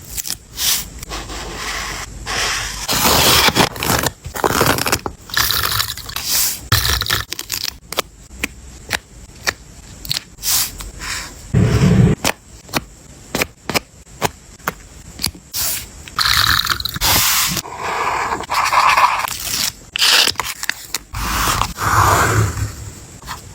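Close-miked journal-making sounds: paper and stickers being handled, scraped and rustled, with many short clicks and taps at irregular intervals.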